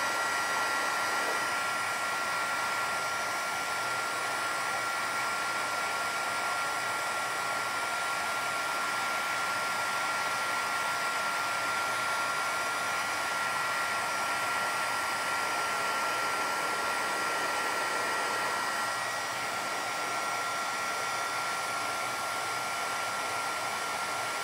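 Heat embossing tool blowing hot air steadily, a rush of air with a constant high whine, melting embossing powder on cardstock to heat set it.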